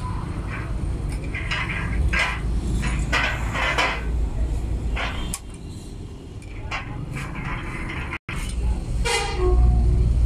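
Screwdriver scraping and clinking against a truck crane's steel wheel hub in short, irregular strokes as the old hub seal is worked out, over a steady low rumble.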